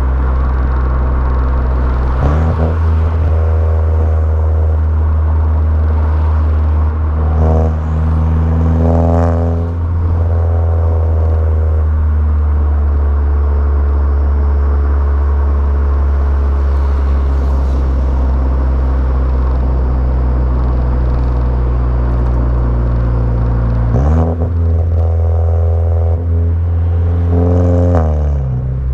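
Engine and exhaust of a VW Jetta GLI Mk6 with a 2.0-litre turbo four, downpipe and cat-back exhaust: a steady low drone, with the revs climbing and dropping three times, a couple of seconds in, between about 7 and 10 seconds, and near the end.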